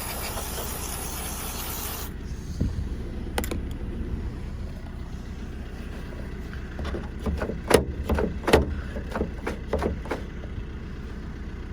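Aerosol contact cleaner spraying onto a van's tailgate lock mechanism, a steady hiss that cuts off about two seconds in. Then scattered clicks and knocks as the freshly cleaned, sticking latch mechanism is worked by hand, coming more often in the second half.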